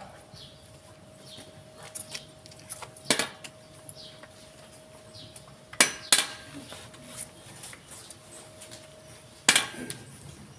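A few sharp knocks and clinks, the loudest about three seconds in, a pair just after six seconds and one near the end, over a faint steady hum, with small birds chirping.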